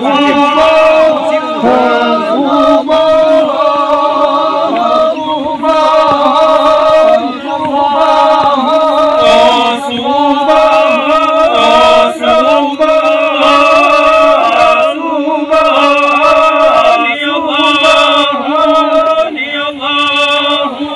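Men's voices chanting together in song, long held notes broken by short pauses every few seconds.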